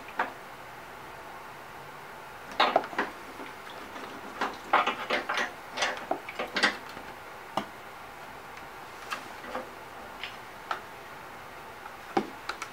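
Hard plastic clattering and knocking as a lawnmower engine's plastic top shroud, with its fuel tank, is tipped and handled over a clear plastic tub to drain the last of the fuel. The clicks and knocks come in scattered clusters, busiest a few seconds in.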